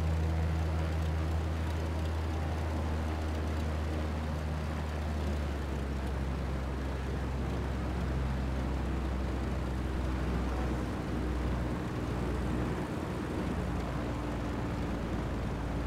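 Pitts Special biplane's piston engine and propeller running steadily with a deep hum. The hum turns rougher and lower about five seconds in.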